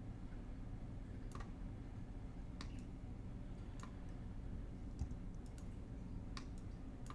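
Sparse single clicks at a computer, about one a second, over a low steady hum.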